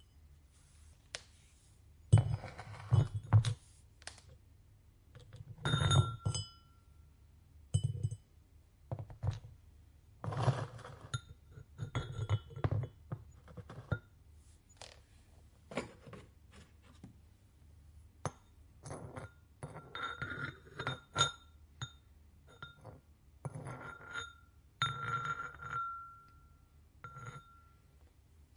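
Ceramic ware and tools being handled and set down in a pottery studio: irregular knocks and clinks, some ringing briefly, with quiet gaps between.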